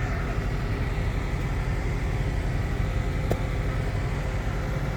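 Heavy mining machinery running steadily, a low rumble, with one short sharp click about three seconds in.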